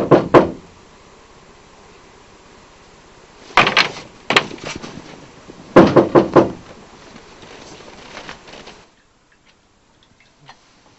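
Hard knocking on a door in three bursts of quick knocks: one right at the start, one about three and a half seconds in and one about six seconds in.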